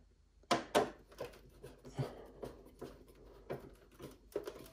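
Screwdriver hand-tightening a VESA screw into the metal mounting plate of a monitor arm on the back of a monitor: a string of light, irregular clicks, a few each second, as the screw is turned down snug.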